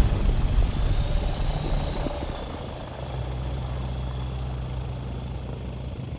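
A light aircraft's piston engine idling with a low, steady rumble that gradually gets quieter.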